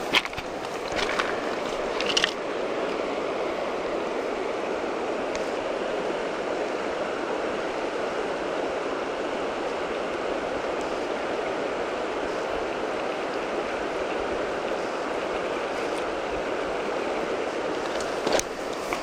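Steady rush of flowing river current, with a few short knocks or rustles in the first couple of seconds and again near the end.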